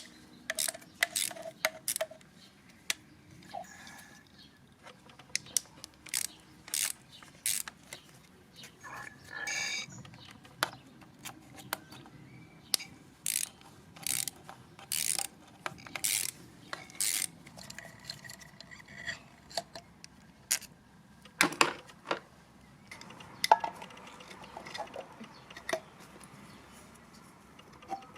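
Irregular clicks, scrapes and clatter of hand tools on metal and plastic parts as a pressure washer is taken apart for scrap, with a few short metallic rings.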